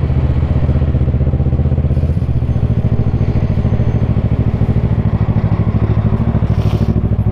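Motorcycle engine running steadily under way, its note shifting slightly about two seconds in.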